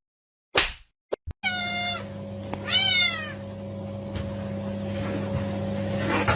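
Domestic cat meowing twice, the second meow bending down in pitch, over a steady low background hum. A brief whoosh and two clicks come just before the first meow.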